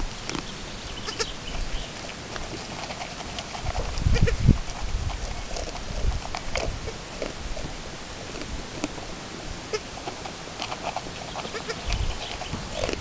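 Chamois-coloured Alpine goat feeding from a plastic bucket: irregular crunching and clicking as she eats, with a few low thumps about four seconds in.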